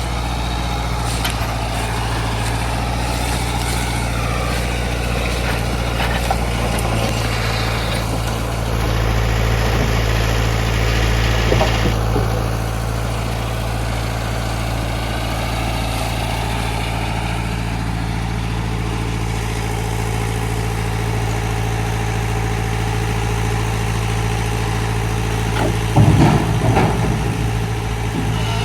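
Heavy diesel truck engine idling steadily, with a louder stretch about a third of the way in and a brief louder disturbance near the end.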